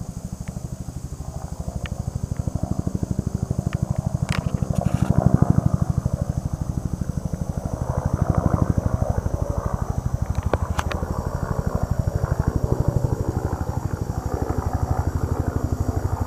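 Bell UH-1 Huey helicopter with a water bucket slung beneath it, flying close overhead. Its two-blade rotor beats in a rapid, steady pulse that swells and fades a few times as it passes.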